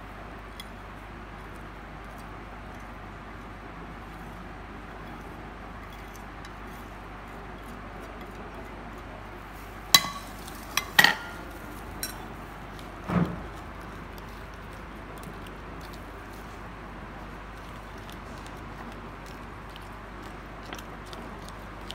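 A metal spoon clinking against a small ceramic ramekin a few times near the middle, while stirring spices into sauce, over a steady background hiss.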